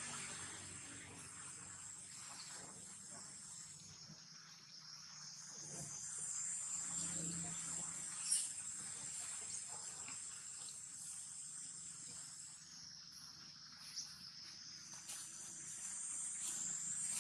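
Steady, high-pitched chorus of insects such as crickets, with a couple of brief sharp clicks partway through.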